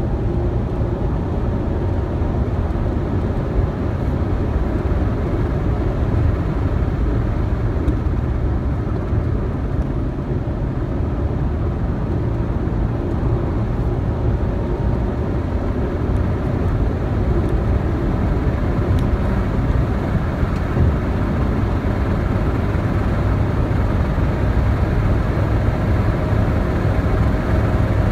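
Ford Mustang driving at a steady cruise: steady, low engine and road noise that stays even throughout.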